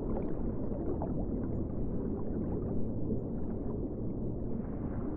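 Underwater ambience: a steady, muffled low rumble of water with many small bubbles popping and rising through it.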